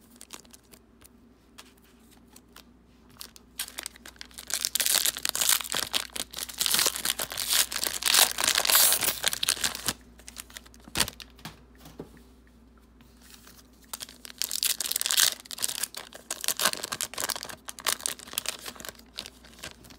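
Plastic wrapper of a trading card pack crinkling and tearing as it is ripped open and handled, in two bouts several seconds long with a pause between them.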